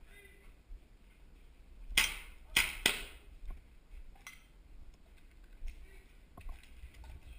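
Three sharp airsoft gun shots in quick succession about two seconds in, followed by a few fainter clicks.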